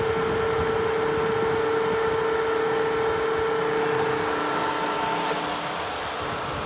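Husqvarna DXR 140 demolition robot running, its electric motor and hydraulic pump making a steady whirring hum with a few steady tones; the strongest hum tone fades away after about four seconds.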